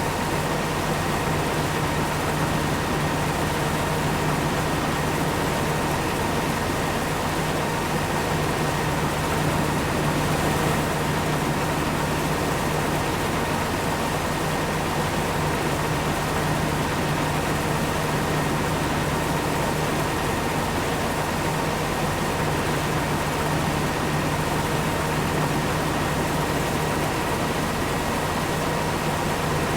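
Large farm machine's engine running steadily at constant speed: an even drone with a thin, steady whine above it.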